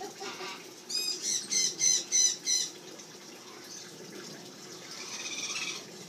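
A parrot gives a quick run of about six loud, harsh squawks about a second in, then a softer run of calls near the end.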